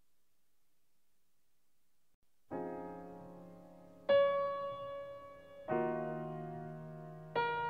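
Near silence for about two and a half seconds, then slow keyboard chords in an ambient new-age piece begin. Each chord is struck and fades, with a new one about every second and a half.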